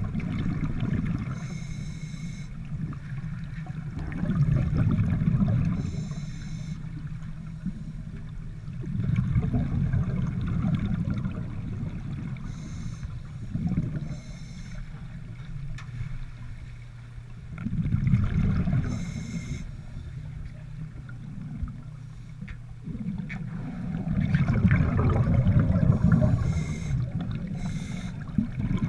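Scuba divers' exhaled breath bubbling out of their regulators, heard underwater: a low, muffled bubbling rumble in bursts of a couple of seconds, coming about every four to five seconds, with a faint hiss between.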